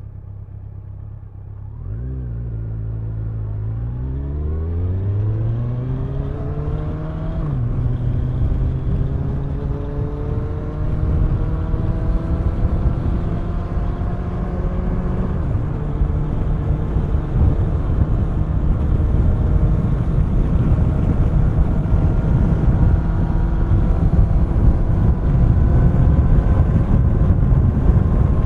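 Kawasaki Ninja 1000's inline-four engine idling, then pulling away about two seconds in with a rising pitch, shifting up about seven and a half seconds in and again about fifteen seconds in. It then runs steadily at speed, the pitch creeping up, with wind rush growing underneath.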